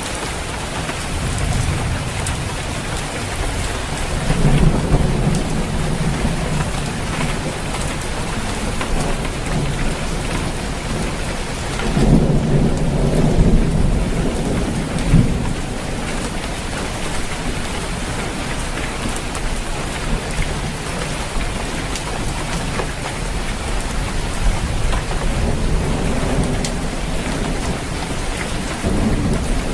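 Heavy rain falling steadily on a roof, with low thunder rumbling twice, about four seconds in and more loudly near the middle.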